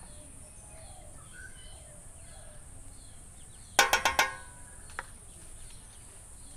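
Steel spoon clinking against a stainless steel plate while dabbing cream onto it: a quick run of four or five ringing taps about four seconds in, then one more tap a second later. Faint insect chirping sits underneath.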